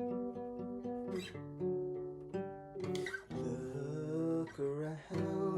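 Acoustic guitar playing held chords in a song's instrumental part, with a wavering melody line joining about three seconds in.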